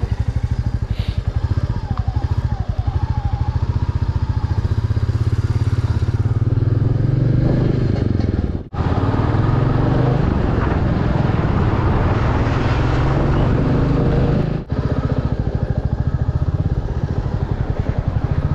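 Motorcycle engine running steadily under the rider as the bike pulls away and rides on, with road and wind noise swelling in the middle. The sound drops out sharply twice, for a split second each time.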